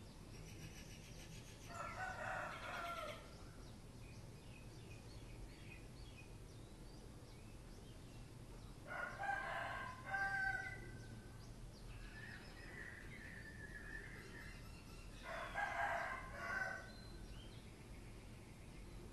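Rooster crowing: three long cock-a-doodle-doo crows about six to seven seconds apart, over a low steady hum.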